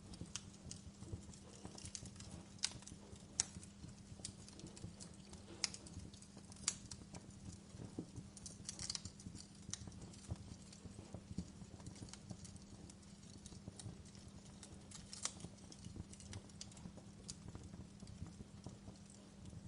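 Wood fire crackling: irregular sharp pops and snaps over a faint, steady low hum.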